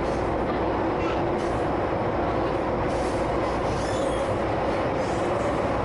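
Steady running noise of an MTR subway train heard from inside the carriage as it goes through a curve, with a faint high wheel squeal coming and going.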